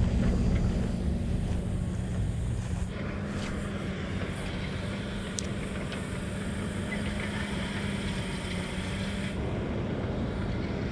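Steady low engine drone with a held hum, loudest for the first few seconds and then easing to a steady level, with one faint click about five seconds in.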